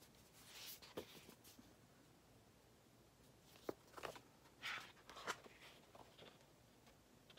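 Faint paper rustling and handling as the pages of a booklet are turned, a few soft swishes with a couple of light clicks, clustered about a second in and again from about three and a half to five and a half seconds in.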